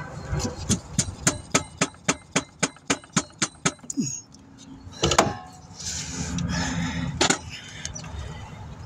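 Rapid even metal clicks or taps, about four a second for some three seconds, then two louder single knocks with a little scraping between, from tools and metal parts as the new alternator is worked against its mounting to line up the bolt holes.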